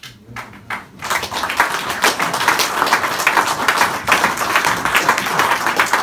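Audience applauding: a few scattered claps, then from about a second in loud, steady clapping from many hands.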